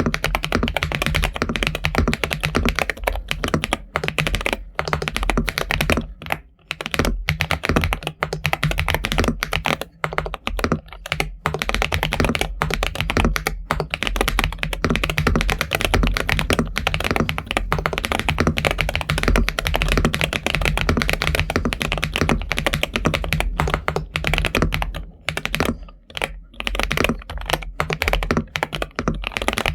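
Continuous fast typing on a mechanical keyboard with Akko V3 Cream Yellow Pro linear switches, a dense run of key clicks with a few brief pauses between bursts.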